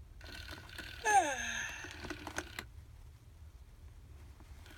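Baby Alive My Real Baby talking doll's electronic voice making a short vocal sound that falls steeply in pitch about a second in, followed by a quick run of sharp clicks.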